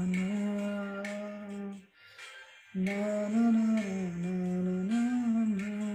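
A voice humming a slow tune in long held notes with gentle rises and falls in pitch, in two phrases with a short break about two seconds in.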